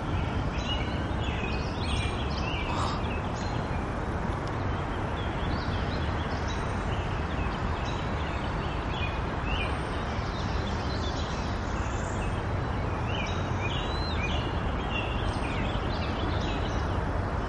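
Small birds chirping in short, frequent calls over a steady low background rumble.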